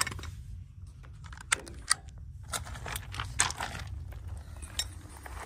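Footsteps on loose river rock: irregular sharp clacks and crunches of stones knocking together, over a steady low rumble.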